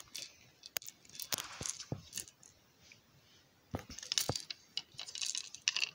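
Crinkly plastic wrapping being handled and pulled at on a small wooden toy candy car, with scattered sharp clicks and taps and short bursts of rustling.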